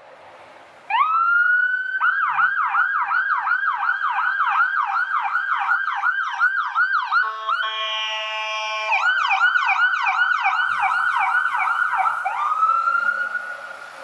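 Ambulance siren passing close. It starts about a second in with a rising wail, switches to a fast yelp of about four sweeps a second, breaks for about a second and a half into a steady blaring horn tone, goes back to the yelp, then ends with another rising wail that fades out near the end.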